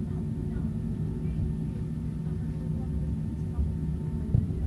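Tram running along street rails, heard from inside the passenger car: a steady low rumble with a faint hum over it.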